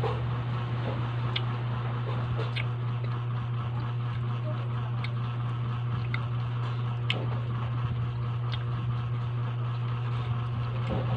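A steady low mechanical hum, with a few faint, scattered clicks over it.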